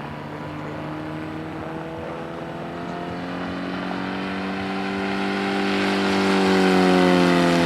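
Radio-controlled model aeroplane's piston engine flying past: a steady buzzing note that grows louder, peaks near the end and drops in pitch as it goes by.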